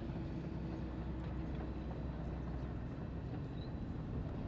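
Heavy tracked armored vehicles, an armored D9 bulldozer and a Merkava tank, running their diesel engines with a steady low drone.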